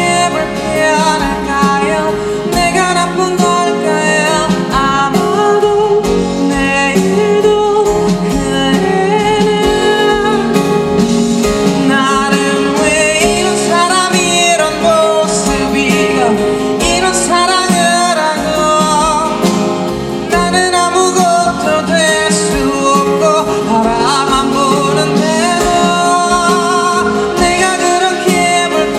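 Live pop music: a male singer singing over guitar accompaniment.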